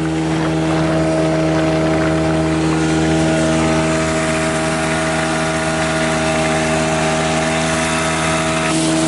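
Tohatsu 5 hp outboard motor running steadily under way, driving an inflatable boat, with the rush of water and wind.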